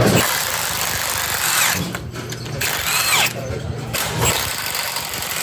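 Cordless impact wrench run in several short bursts on the bolts at the hub end of a Ford Explorer rear axle, its motor spinning up and down with brief pauses between runs.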